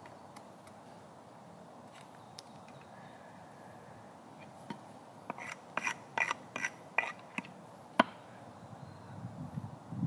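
Hatchet chopping a small wooden stick against a chopping stump: a quick run of about ten sharp knocks over three seconds, about halfway in, ending with one loud blow.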